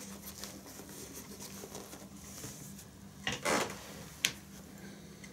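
Handling noise from an Oxford-fabric motorcycle thigh bag and an office chair: quiet rustling of the fabric, then a louder rustle and scuff a little over three seconds in as the wearer gets up from the chair, and a single sharp click just after.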